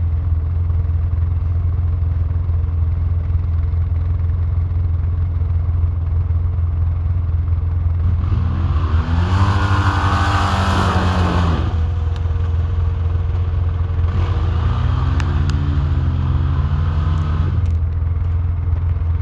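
ATV engine running at a steady drone, then revved up twice, about eight and fourteen seconds in, its pitch rising and falling each time. A loud rushing noise sits over the first rev.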